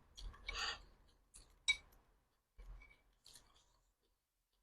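Faint close-up eating sounds: soft mouth and chewing noises with a few small clicks, and one sharp little clink about a second and a half in.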